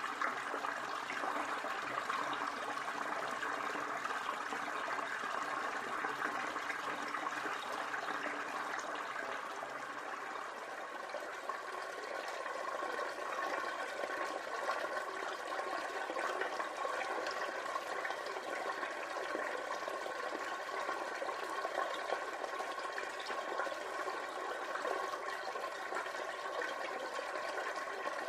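Water running from a tap into a bathtub as it fills: a steady rush and splash that shifts slightly about ten seconds in.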